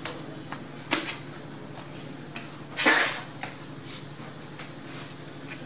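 A few short, sharp knocks, the loudest about three seconds in, over a steady low hum.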